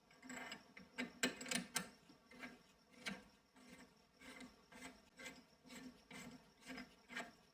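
Repeated hand rubbing strokes, like filing or sanding, about two a second, quicker and louder in the first two seconds.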